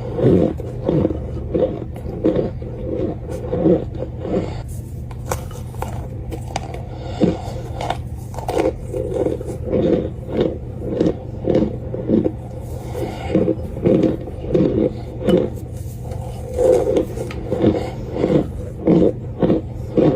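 Close-miked chewing of crunchy chunks of cornstarch for ASMR, in regular crunches about twice a second, over a steady low hum.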